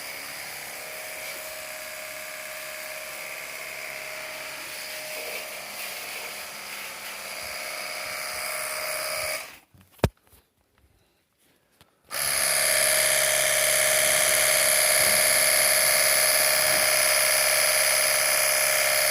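Portable electric pressure washer running with a steady high-pitched motor whine. About ten seconds in it stops for roughly two and a half seconds, with a single sharp click in the gap, then starts again louder.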